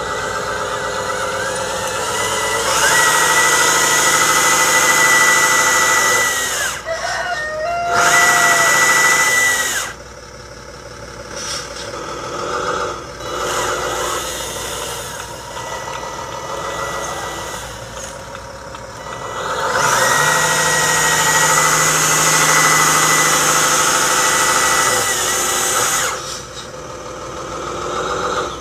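A 1/10-scale RC truck's motor and gearbox whining as it is driven. The whine comes in two long stretches, from about three to ten seconds in and from about twenty to twenty-six seconds in, and is softer in between.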